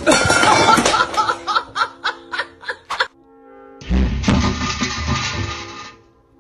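Background music overlaid with a quick run of laughing for about three seconds. Then come a few held notes and about two seconds of noisy scuffling with low thumps.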